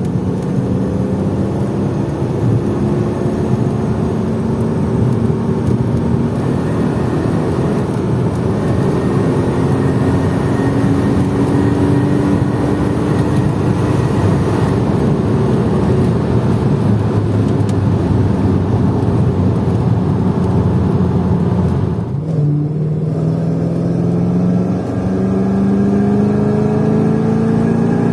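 Mercedes E55 AMG (W210) 5.4-litre V8 exhaust heard from inside the car under acceleration, with the secondary cats deleted, an X-pipe, a resonator delete and a custom muffler. The engine note climbs steadily, drops at a gear change about 22 seconds in, then climbs again.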